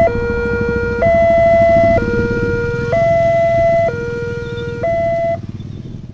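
Indonesian railroad crossing warning siren sounding an electronic two-tone alarm, alternating high and low about once a second over a low rumble. The alarm cuts off about five seconds in.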